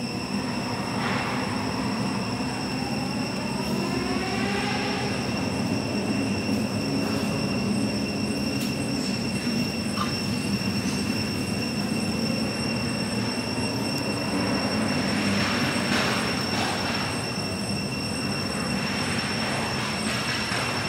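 A steady high-pitched drone of forest insects runs throughout. Over it come a few brief squealing calls, from long-tailed macaques.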